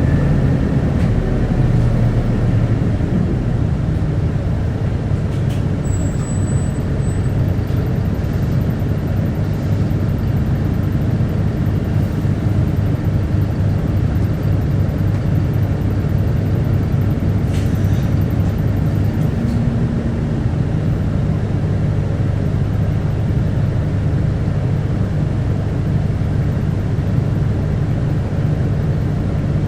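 Keio Bus Isuzu Erga city bus (QKG-KV290N1) running on the road: a steady low diesel engine drone with road noise, and one brief click about eighteen seconds in.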